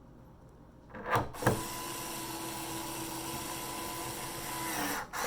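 A power screwdriver driving a screw into the TV's back panel: a couple of knocks about a second in, then the motor runs at a steady pitch for about three and a half seconds, dropping slightly just before it stops.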